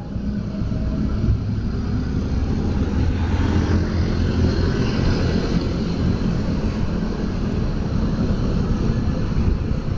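Steady rumble of a motorcycle riding in traffic: engine, tyre and wind noise picked up by the bike-mounted camera's microphone.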